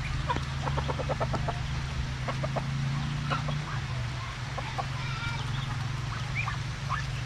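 Free-range chickens clucking, with a quick run of short clucks in the first second and a half and scattered calls after, over a steady low hum.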